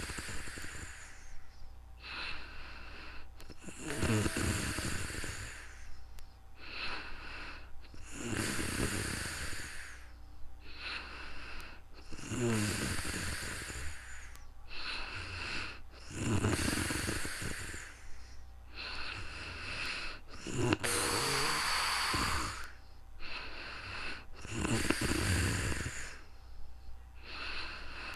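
A person snoring in sleep: seven rattling snores about four seconds apart, with a softer breath between each.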